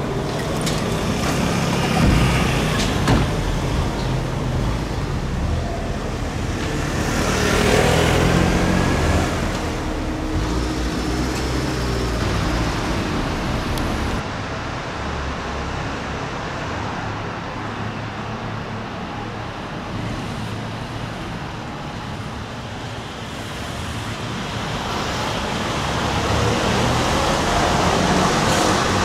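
Articulated electric trolleybuses passing along city streets over steady traffic noise. The tyre and road noise swells as one goes by close, loudest about eight seconds in, with a faint whine over it. The sound drops suddenly at about fourteen seconds and swells again near the end as another passes.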